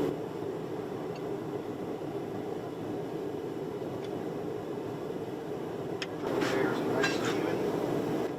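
Gas forge burner running steadily at welding heat. About six to seven seconds in come a few brief clinks and scrapes.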